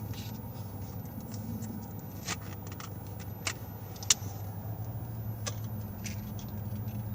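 A car engine idling with a steady low hum, broken by a few sharp clicks and taps, the loudest about four seconds in.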